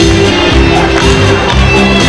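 Music with a steady beat and a bass line, played loud.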